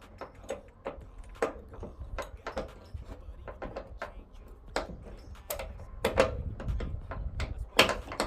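Irregular small metal clicks and taps as a steel T-nut is worked into a mounting hole in a pickup tailgate, tilted to slip in at an angle, with one louder knock near the end.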